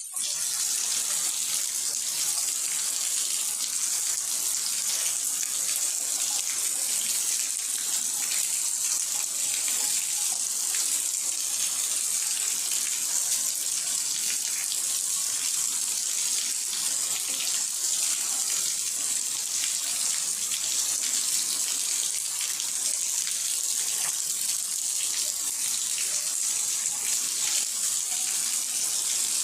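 Steady rain falling: an even, dense hiss with a faint patter of drops, unchanging throughout.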